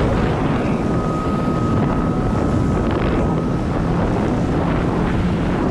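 Supercharged engine of a Kawasaki Jet Ski Ultra 310 running steadily under way, mixed with heavy wind buffeting on the microphone. A faint steady whine fades out about three and a half seconds in.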